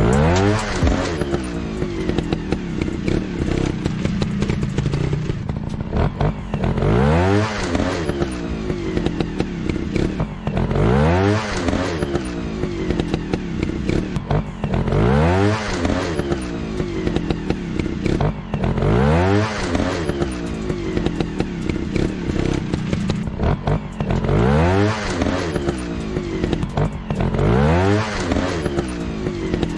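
Dirt bike engine revving up again and again, its pitch climbing in a rising sweep about every four seconds, about seven times in all.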